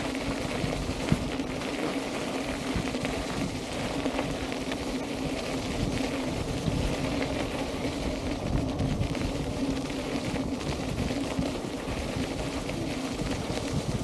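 Electric unicycle rolling over a gravel path: a steady gritty crunch and hiss of the tyre on loose gravel, with a steady low hum underneath.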